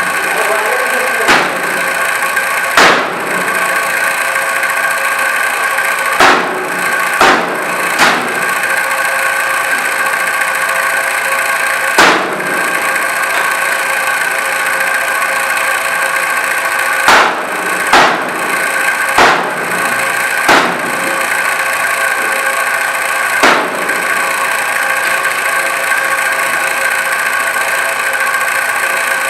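Knife chopping raw chicken on a red plastic cutting board: about a dozen sharp, irregularly spaced chops. A steady droning hum runs underneath.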